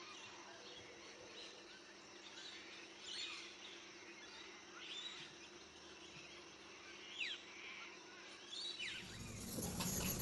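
Faint bird calls: scattered short chirps and quick downward-sweeping whistles every second or two over a steady low hum. A louder rumble comes in near the end.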